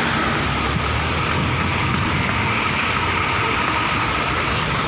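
Bus on the move: a steady engine rumble with road noise and a faint steady whine, unchanging throughout.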